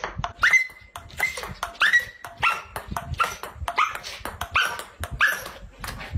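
A dog barking in about eight short, high yips, evenly spaced about two-thirds of a second apart, excited by a ping-pong ball. Light clicks of the ping-pong ball bouncing on the table come between the barks.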